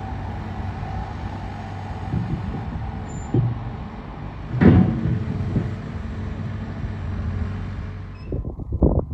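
Steady low rumble of a distant vehicle, with a single sharp knock about halfway through. Near the end the sound cuts abruptly to a run of irregular knocks.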